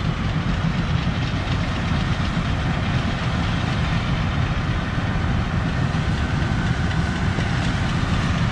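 John Deere X9 combine harvester running as it cuts wheat, a steady low drone; a faint whine joins about six seconds in.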